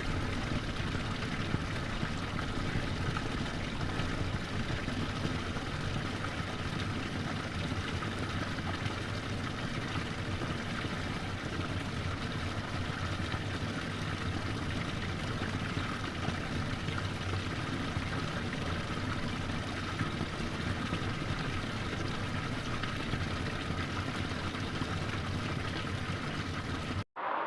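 Forest stream flowing, a steady even rush of water. It cuts out for a moment near the end.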